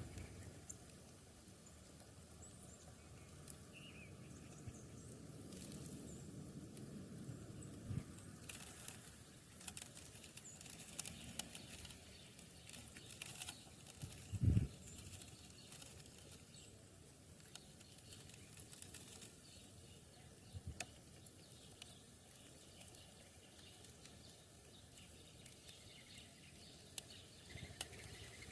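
Sparrows and doves feeding in the snow: faint scattered wing flutters and light pecking taps, busiest around the middle, with one dull thump about halfway through.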